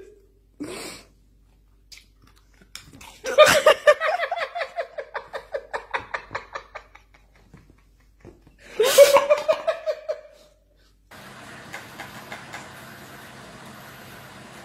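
A person laughing hard: a long run of pulsing, high-pitched laughs that fade out, then a second shorter burst of laughter. After that comes a steady faint room hum.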